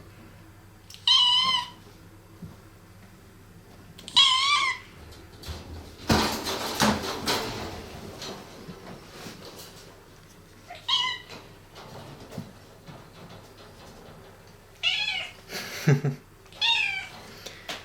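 Domestic cat meowing five times, short high calls that waver in pitch, spread out over the stretch. A burst of noise in the middle and a low thump near the end.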